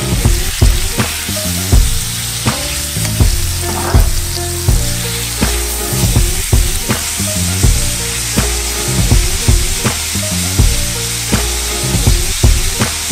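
Sliced beef sizzling in hot oil in a nonstick frying pan, stirred with a spatula that clicks and scrapes against the pan. Background music with a steady beat plays underneath.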